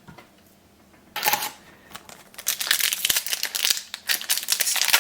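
Plastic wrapper of a trading-card booster pack crinkling as it is handled and opened, a brief rustle a little after a second in, then steady crackling from about two seconds in.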